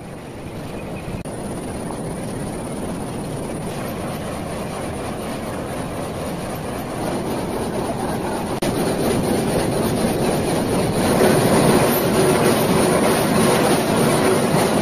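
Steady industrial machinery noise in a stone-cutting works. It steps louder twice; in the last few seconds a marble gang saw runs through a block under a water spray, with a steady hum and a high whine over a rushing noise.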